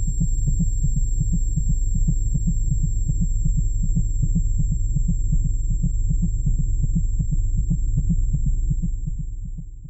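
A low, heartbeat-like throb from a film's sound design, pulsing fast, about four times a second, over a steady deep hum. It fades out near the end.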